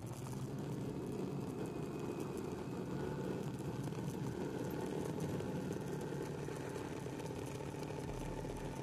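Motorcycle engine running at steady cruising revs while riding, mixed with wind and road noise.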